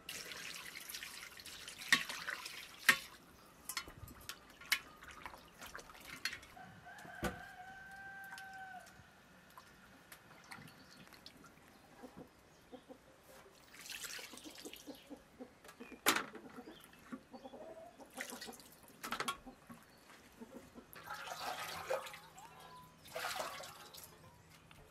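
Water poured from an enamel jug onto raw chicken pieces in an enamel basin, then splashing, dripping and wet slaps as the pieces are washed and turned by hand, with clinks against the basin. A domestic fowl calls once in the background about seven seconds in.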